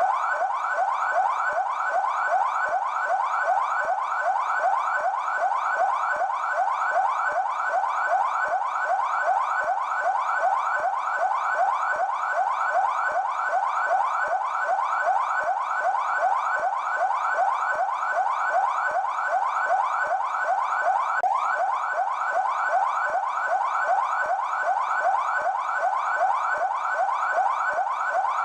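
PMESP police car siren on its yelp setting: a fast, steady run of rising pitch sweeps, several a second, repeating without a break.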